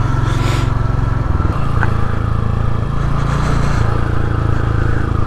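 Royal Enfield Hunter 350's single-cylinder engine running at low road speed, its note shifting a little as the throttle changes about a second in and again around three seconds.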